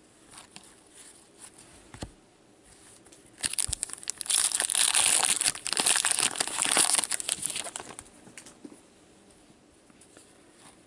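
A 2016-17 Upper Deck Series 1 hockey card pack wrapper being torn open and crinkled by gloved hands. It is a loud rustling that starts about three seconds in and lasts about four seconds, after a few soft taps of cards being handled.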